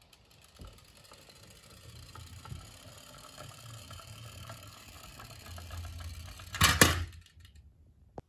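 Small plastic toy cement mixer truck rolling down a wooden board, its wheels rattling on the wood and growing louder as it speeds up. A loud double clack about two-thirds of the way through as it comes off the board onto the wooden floor.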